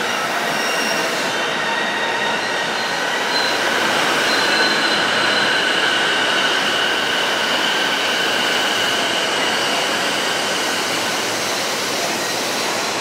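Electric train running along the rails with the steady rumble of wheels on track and high, steady squealing of wheels on rail, easing slightly near the end.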